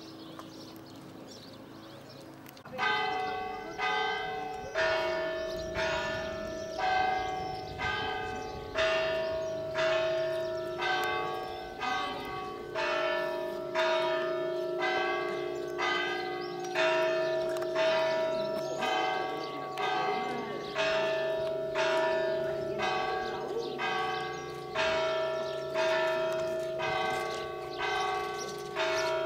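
Church bells ringing a steady peal, one strike about every second with the pitch alternating between bells, each stroke ringing on into the next; it starts a few seconds in after quieter outdoor background.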